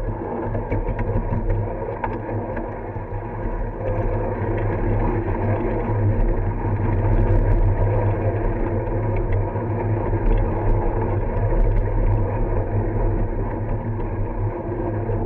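A ride-on miniature live-steam train's cars rolling along the track, making a steady low rumble with a few light clicks in the middle.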